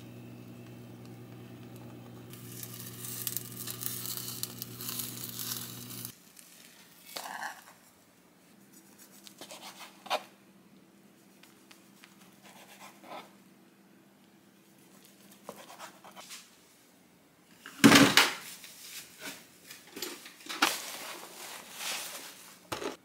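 Kitchen sounds. A steady low hum, joined by hissing from the pan of rolled egg omelette, cuts off about six seconds in. Then a chef's knife makes a few soft cuts through the omelette onto a plastic cutting board. Near the end a cloth lunch bag is handled with a loud rustle and crinkle.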